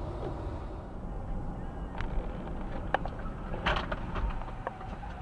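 Steady low rumble of a car's road and engine noise heard from inside the cabin by a dashcam while driving, with a few short sharp clicks in the middle.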